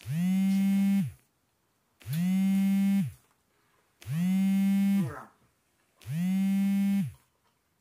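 A steady, buzzy humming tone about a second long, repeated four times at even two-second intervals, each one sounding the same, with quiet gaps between.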